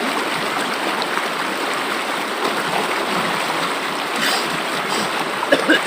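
River water flowing, a steady, even noise.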